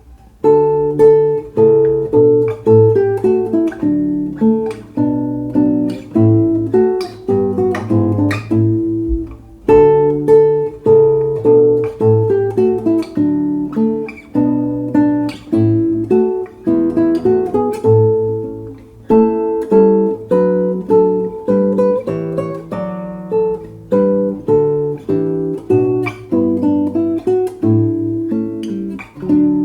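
Solo acoustic guitar playing a hymn tune, plucked notes with some strummed chords over a bass line, in phrases with short pauses between them, ending on a chord left to ring out.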